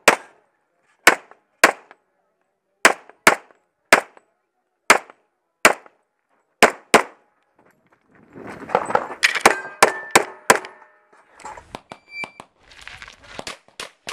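Semi-automatic pistol fired in quick pairs of shots, ten sharp cracks in about seven seconds. Then comes a denser run of shots mixed with ringing metallic clangs. Near the end there is a string of quieter, evenly spaced shots from farther off.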